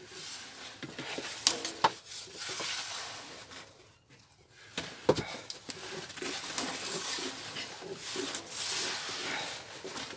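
Yufka flatbread being worked on a sac griddle: a few sharp knocks of the wooden rolling rod against the griddle and board, with rustling of the dough sheets. Pigeons coo in the background during the second half.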